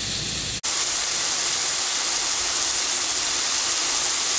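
Strips of flat iron steak frying in oil in a hot Finex cast-iron skillet: a steady, even sizzle. It breaks off for an instant about half a second in, then carries on a little louder.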